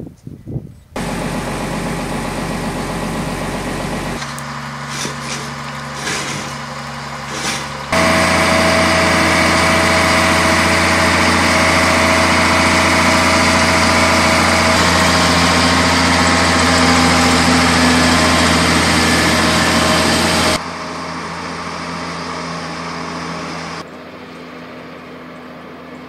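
Diesel engine of a tracked snow groomer running steadily as it works the slope, with a low engine hum. The level jumps abruptly several times and is loudest from about 8 to 20 seconds in.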